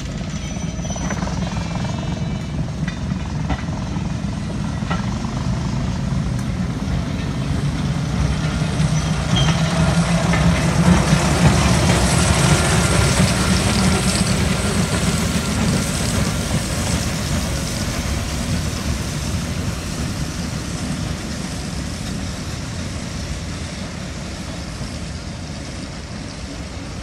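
Heritage train passing close by and drawing away: coach wheels running on the rails, growing loudest about twelve seconds in as the rear locomotive, the Sentinel steam shunter 7492, goes past, then slowly fading.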